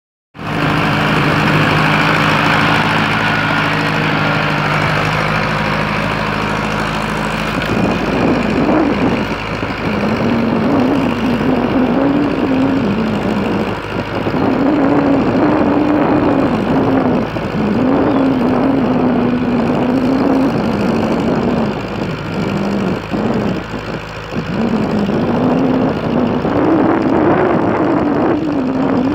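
Ford tractor engine running, steady at first, then from about eight seconds in its pitch repeatedly rising and falling as the engine labours and recovers under changing load.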